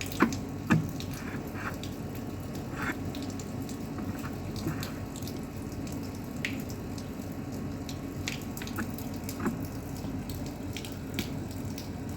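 Light clicks and knocks of a washing machine's transmission shaft and gear parts being handled, with two sharper knocks in the first second, over a steady background hiss. The shaft has a little play.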